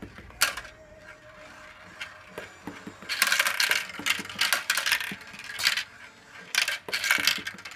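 Marbles rolling and clattering down a plastic marble-run track: a few scattered clicks at first, then a fast run of clicks and rattles from about three seconds in, a short pause, and another run near the end.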